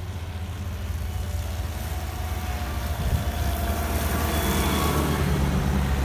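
Engine of a small sidewalk snow plow tractor running with a steady low drone, growing louder as it approaches and passes close by.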